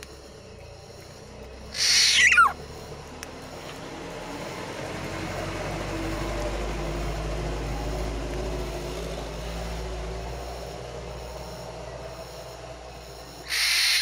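Black-naped oriole giving two loud, harsh calls that drop steeply in pitch, one about two seconds in and another near the end. Between the calls a low rumble swells and fades.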